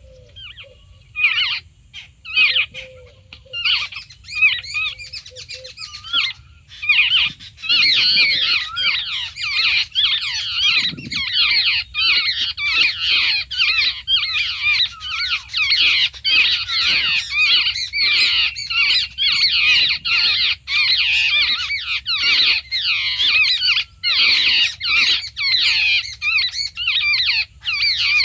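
A flock of babblers giving harsh, squawking chatter. A few scattered calls at first, then, about a quarter of the way in, many birds calling over one another in a continuous din.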